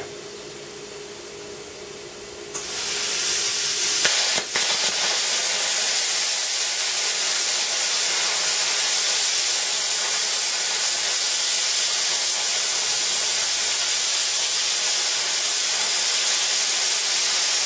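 Small 40-amp plasma cutter, set to 30 amps, cutting through 5 mm steel plate: a loud steady hiss of the arc and air jet starts about two and a half seconds in, breaks off briefly with a click around four seconds, then runs on evenly. Before the arc strikes there is a faint steady hum.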